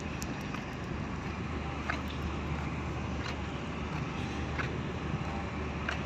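Open-air harbour ambience: a steady rush of wind and distant traffic, with a low hum coming in about a second and a half in and a few faint ticks.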